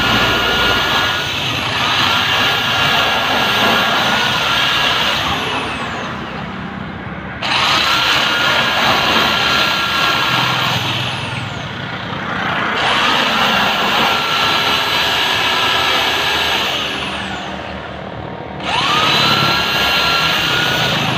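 Corded electric hand drill cutting into the steel bearing cup stuck in a rear axle housing, the bit grinding on the metal. The trigger is let off three times: each time the motor's whine falls away, then rises again as it spins back up.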